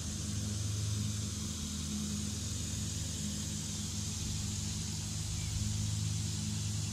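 A steady low mechanical hum, as of an engine or motor running, with a faint high hiss over it.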